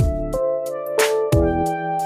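Background music: held keyboard-like chords over a beat of sharp drum hits.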